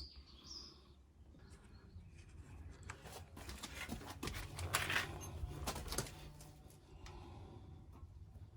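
Faint scattered clicks and light metallic taps of an Allen key and brake parts being handled as the front disc brake caliper bolt is undone, with a short high chirp near the start.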